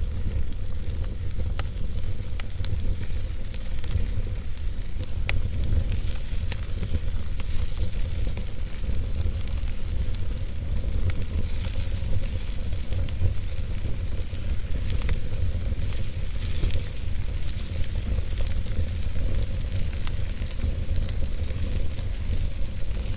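Wood fire crackling in a fireplace, with scattered sharp pops over a steady low rumble.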